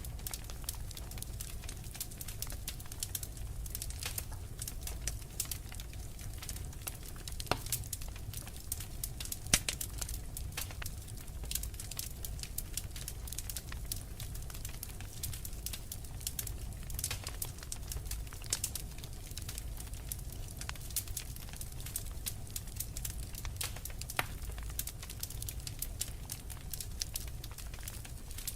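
Wood fire crackling, with irregular small pops and snaps over a steady low rumble; one sharper pop stands out about nine and a half seconds in.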